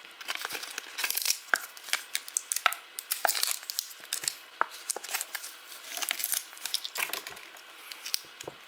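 Thin plastic packaging crinkling and being torn open, with many small clicks and taps, as the toy coins of a toy cash register are unwrapped.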